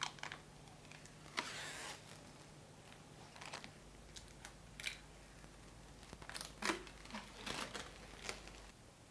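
Protective plastic film being peeled off a PC case's front panel: scattered crinkles and crackles, with a longer tearing rustle about a second and a half in.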